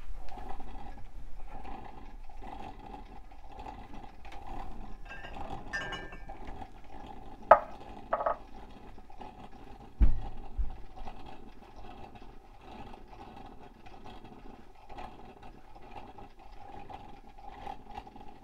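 Presto electric coffee percolator perking mid-brew, a steady gurgling and bubbling of water cycling through it. Two sharp clinks come about seven and eight seconds in, and a dull thump about ten seconds in.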